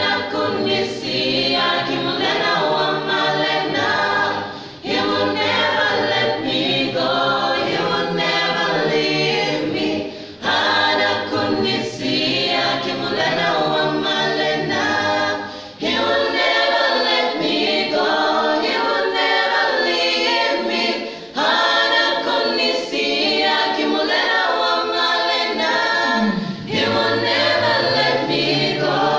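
Mixed choir of men and women singing a gospel song a cappella, in phrases of about five seconds with a short breath between each.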